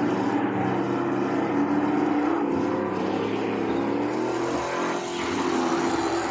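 Jet boat's 4.8-litre LS V8 engine running steadily under throttle, its pitch climbing a little between two and three seconds in and then holding.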